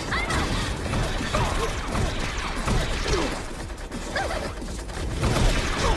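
Dense action-scene sound effects: crashing and mechanical clatter with several short falling squeals.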